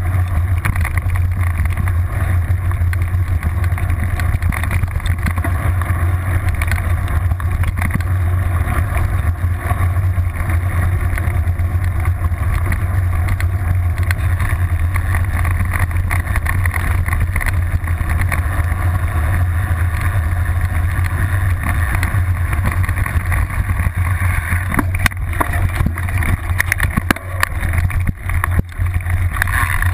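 Riding noise from a mountain bike on a gravel track, picked up by a seatpost-mounted camera: a steady rumble of wind on the microphone with the rear tyre crunching over gravel. Toward the end, sharp knocks and rattles come more often as the bike runs onto rougher, grassy ground.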